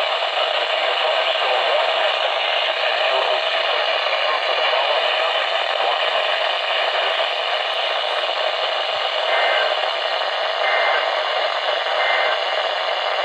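Steady radio static hiss from a radio receiver, with a few faint short tones in the last few seconds.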